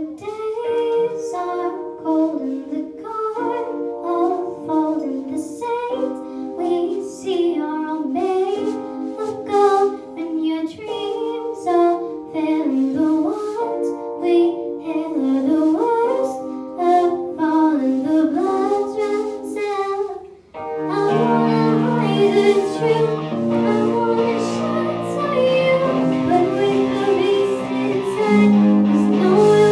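Live children's rock band: a child singing over band accompaniment. About two-thirds through, the sound drops briefly, then the band comes back in fuller, with bass notes underneath.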